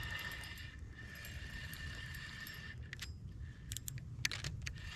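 A few short, faint clicks from the fishing reel while a small bass is played on the line, over a low steady rumble.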